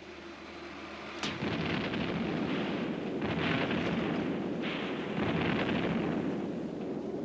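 Heavy gunfire and shell explosions. A sudden blast about a second in is followed by further blasts that run together into a long, loud din, which begins to fade near the end.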